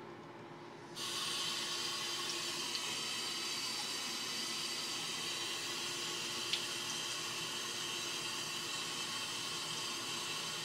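Bathroom sink tap turned on about a second in, water running steadily into the basin.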